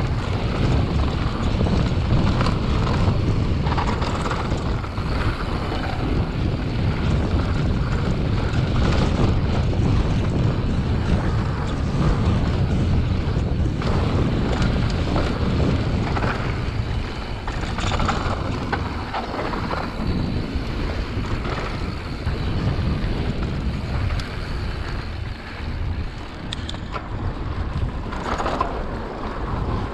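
Wind rushing over the microphone of a moving mountain bike, mixed with the rolling of its knobby Maxxis tyres on a dirt trail and frequent short knocks and rattles as the bike goes over bumps.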